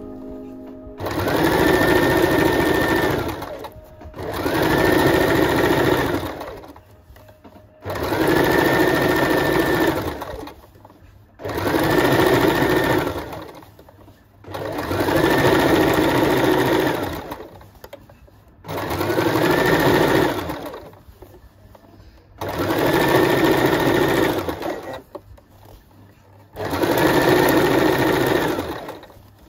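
Electric sewing machine stitching a narrow rolled hem in short runs of two to three seconds, stopping and starting about eight times as the fabric is guided, with a whine that rises as the motor speeds up at the start of each run.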